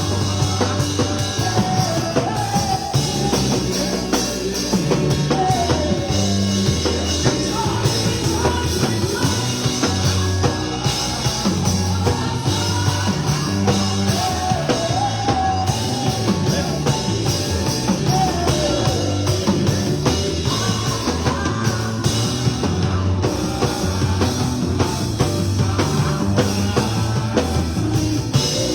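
Live praise music with a full band: drum kit, bass and guitar under singing.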